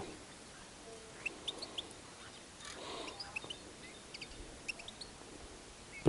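Faint short calls of decoy female bullfinches, a few scattered chirps in small clusters.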